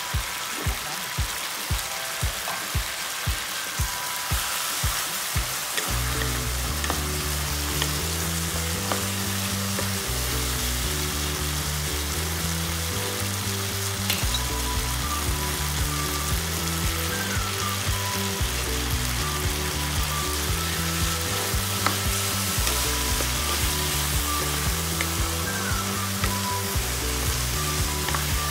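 Pork ear stir-frying in a wok: a steady sizzle with the scrape of a wooden spatula turning the pieces. Background music plays underneath, a steady beat at first, with a bass line coming in about six seconds in.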